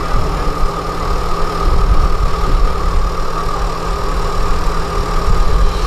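Excavator diesel engine running steadily: a low rumble with a steady high whine above it.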